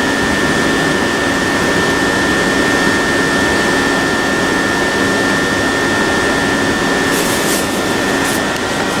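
Southeastern Class 375 Electrostar electric multiple unit standing at close range, its onboard equipment giving a steady whirring noise with a high whine and a low hum. Near the end a few short hisses come as the train begins to pull away.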